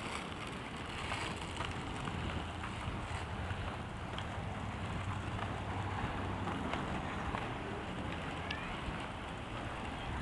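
Skateboard wheels rolling over asphalt: a steady rumbling noise, with wind buffeting the microphone.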